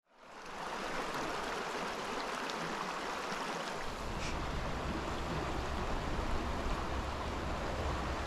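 Small rocky creek running: a steady rush of flowing water that fades in at the start. A low wind rumble on the microphone joins about four seconds in.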